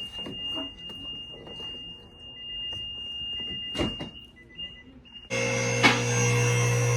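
A steady high-pitched electronic tone with a few knocks, then a little after five seconds an electric motor starts abruptly and runs with a loud, steady hum.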